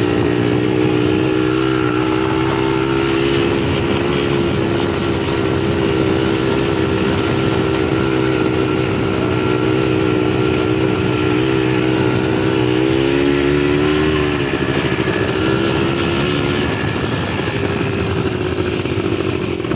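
ATV (quad bike) engine running steadily as it is ridden, with a brief dip in pitch about two-thirds of the way through, after which its note is fainter.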